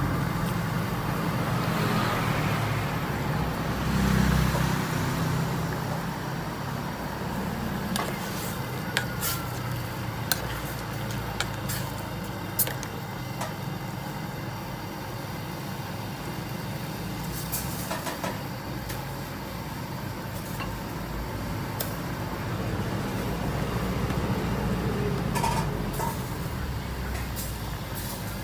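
Steady low rumble with a few sharp metal clinks, a ladle knocking against an aluminium soup pot, scattered through the middle and near the end.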